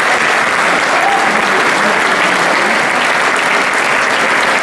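A large audience applauding steadily, a dense even clapping.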